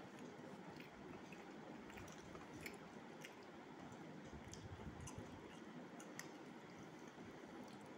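Very faint eating sounds: fingers squishing and mixing rice with potol dalna on a steel plate, with scattered soft irregular clicks and some chewing.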